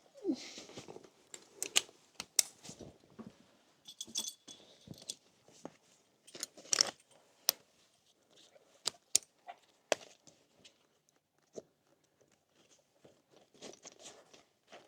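Metal horse-harness fittings clinking and knocking irregularly, a string of sharp separate clicks and jingles as Percheron draught horses are handled in their harness.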